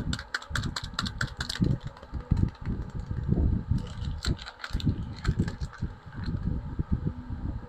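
Soap packaging being handled and opened: rustling and crinkling with quick clusters of clicks and soft knocks.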